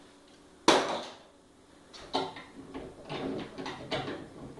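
Wooden knocks and handling sounds from a large plywood sheet being moved: one sharp knock about a second in, then a run of lighter, irregular knocks and clatter.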